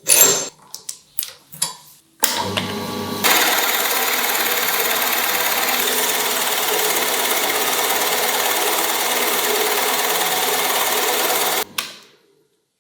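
A few sharp knocks on wood, then an electric woodworking power tool starts about two seconds in, runs steadily for about nine seconds and stops near the end.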